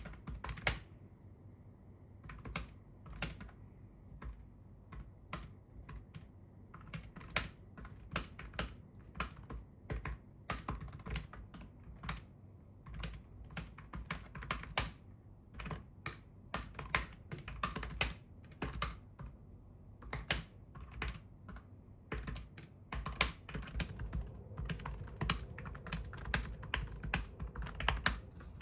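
Tiny built-in keys of an M5Stack Cardputer clicking as someone types, in quick irregular runs of several keystrokes a second broken by short pauses.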